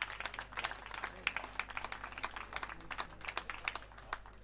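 Audience clapping, many scattered claps with no steady rhythm, the applause thinning out toward the end.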